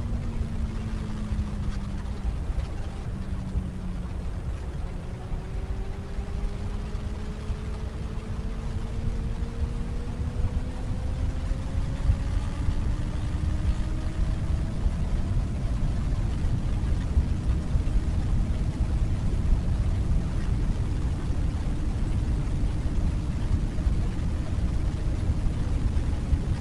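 Wind buffeting the microphone of a riding motorcycle, louder than the exhaust, over the fainter note of a Benelli BN600i's inline-four engine whose pitch dips briefly near the start, then climbs slowly as the bike gains speed.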